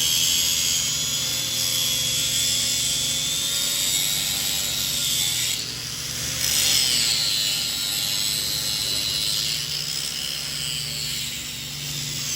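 Welding-shop noise: a power tool whines with a high pitch that wavers up and down over steady machine hum. About six seconds in comes a short, louder burst of hiss.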